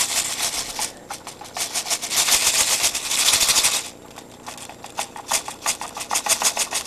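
Airsoft BBs pouring and rattling into a small plastic capsule: a dense clatter of rapid clicks, heaviest about two to four seconds in, then thinning to separate clicks.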